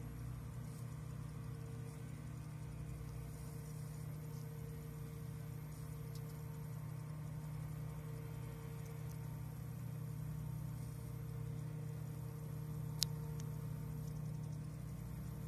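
An engine running steadily at idle as a low, even drone, with one sharp click about thirteen seconds in.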